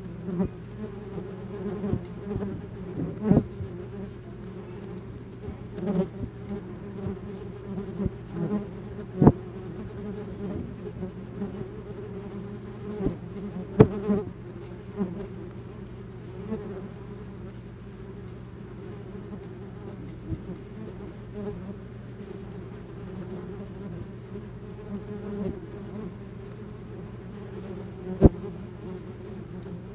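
Wasps buzzing in flight close to the camera, a steady low drone, with a few sharp taps scattered through as wasps strike the camera housing.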